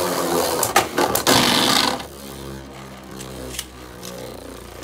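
Beyblade Burst spinning tops battling in a plastic stadium: clicking clashes and a bright scraping over about the first two seconds, then a quieter steady whirring hum as a top keeps spinning, with a single click partway through.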